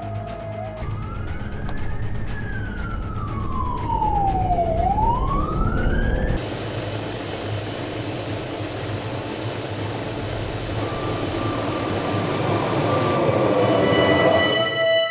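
Emergency vehicle siren wailing, its pitch sweeping slowly down and up over a low rumble. It cuts off abruptly about six seconds in, leaving a steady rumble, and music with sustained tones fades in near the end.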